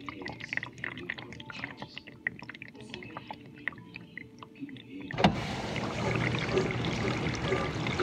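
GE dishwasher with water splashing and dripping inside the tub. About five seconds in there is a clunk, and the wash pump starts, spraying water with a steady rush and a low hum.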